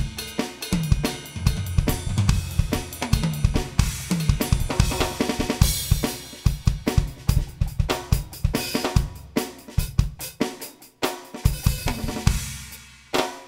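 Roland TD-30 electronic drum kit played in a fast, busy groove: kick, snare, hi-hat and cymbals, with tom hits dropping in pitch through the fills. Heard as the drum module's sampled sounds.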